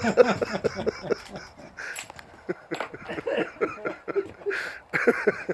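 People chuckling and laughing in short, broken bursts, with a sharp click about two seconds in and a few short rustles near the end.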